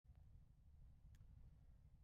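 Near silence: a faint low background rumble, with one faint tick about halfway through.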